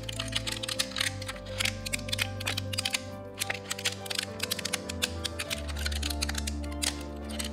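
Background music over an irregular crackle of sharp clicks, like 3D-printed plastic support material being snapped and peeled away by hand.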